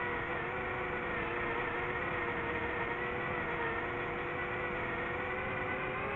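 FPV racing drone's motors and propellers whining steadily in cruising flight, a held hum of several pitches that waver slightly with throttle, over a rushing noise.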